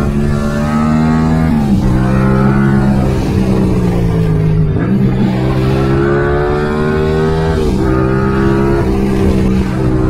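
Yamaha MT-07's 689 cc parallel-twin engine through a full Mivv exhaust system, running loud under way. Its note holds and sweeps with three sharp dips about three seconds apart.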